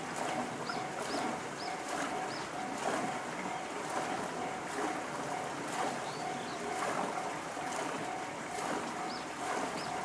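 Japanese railway level-crossing alarm sounding the JR standard electronic bell: a mid-pitched ding repeating evenly and steadily.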